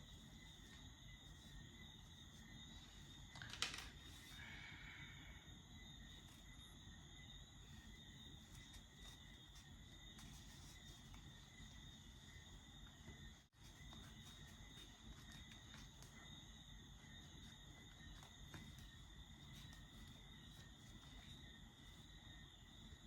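Near silence: faint room tone with a steady high-pitched whine, and one short click about three and a half seconds in.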